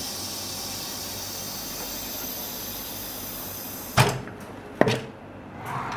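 OCA vacuum laminator running with a steady hiss, which stops about four seconds in with two sharp clunks less than a second apart as the machine finishes its cycle and releases.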